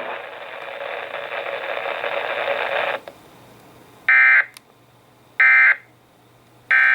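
Radio static hiss that cuts off about three seconds in. It is followed by three short, identical buzzy data bursts about a second apart: the EAS end-of-message code that closes the alert.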